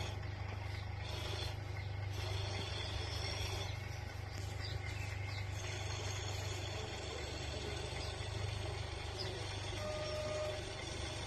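OO-gauge model Class 37 diesel locomotive running with a rake of coaches on outdoor track: a steady low hum from the loco's running. A few short high-pitched tones sound over it.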